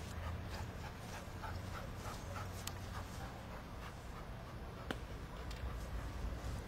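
A dog panting rhythmically, about three breaths a second, over a low rumble, with two sharp clicks, the louder one about five seconds in.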